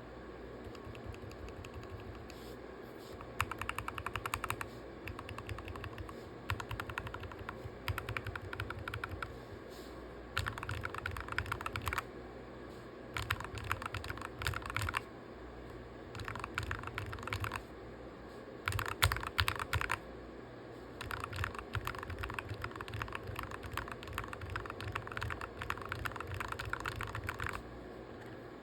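Typing on a mechanical keyboard with factory-lubed Gateron Pro Black linear switches and PBT dye-sub keycaps: rapid keystrokes in runs of a second or more, broken by short pauses, with the longest run near the end.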